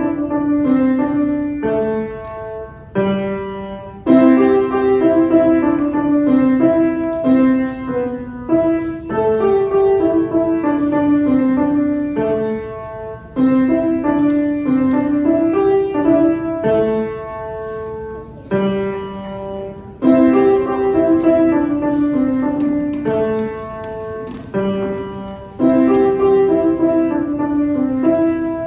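A child playing a grand piano: a simple tune in the middle range, notes struck and dying away, its phrases repeating over and over.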